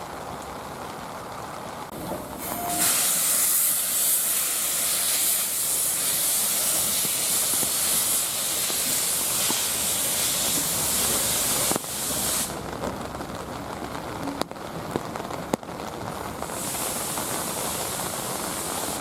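Steam locomotive letting off steam in a loud hiss that starts about three seconds in and cuts off about twelve seconds in. It starts again near the end, over steady rain, with two sharp knocks in the pause.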